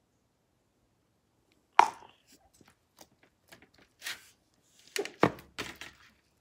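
Slime being kneaded and poked by hand on a metal baking sheet: a sharp click about two seconds in, then scattered sticky squishes, small pops and clicks, louder ones coming close together near the end.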